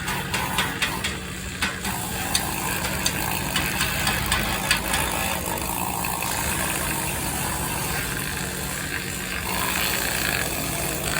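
An engine running steadily, with scattered sharp clicks and knocks through the first half.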